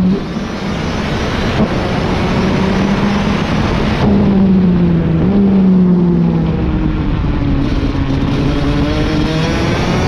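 Rotax DD2 kart's 125 cc single-cylinder two-stroke engine, heard from on board under a constant rush of wind. The engine note drops off as the kart slows for a corner, then the engine picks up again about four seconds in as it accelerates out.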